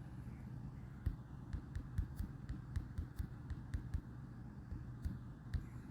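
Fingertips tapping on a smartphone touchscreen while typing, a quick irregular run of taps, two or three a second, with a short pause near the end.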